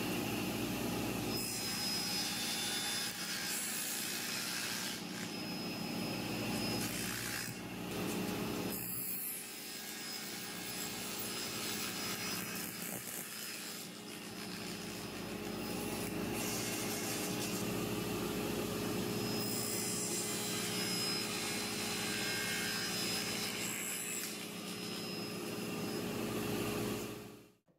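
Table saw with an 80-tooth crosscut blade running steadily while making 45-degree mitre cuts in walnut on a crosscut sled. The sound dips briefly twice and cuts off near the end.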